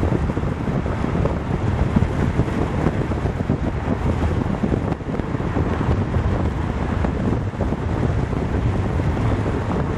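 Wind buffeting the microphone of a camera moving at highway speed, over a steady rush of road and traffic noise.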